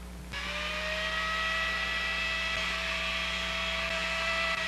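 Handheld electric hair dryer switched on about a third of a second in. Its motor spins up with a short rising whine, then runs steadily with a whine over a rush of blown air.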